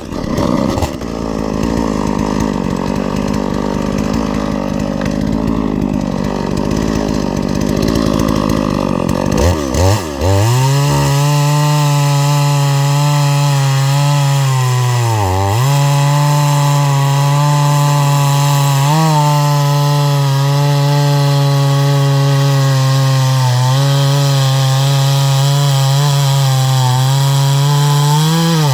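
Farmmac F380W 72 cc two-stroke chainsaw running hard. About ten seconds in, its pitch wavers and then holds at a high steady note, which dips briefly twice.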